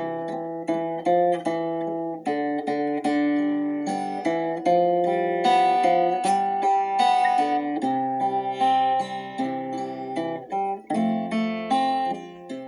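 Instrumental acoustic guitar music: a slow melody of plucked notes over ringing bass notes.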